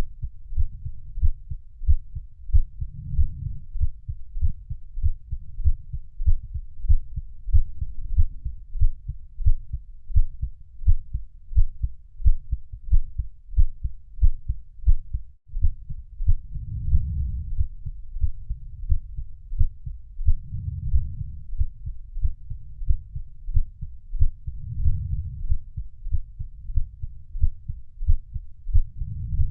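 Heartbeat playing as a steady, even run of low thumps, with a deeper swell every few seconds. It cuts out for an instant about halfway through.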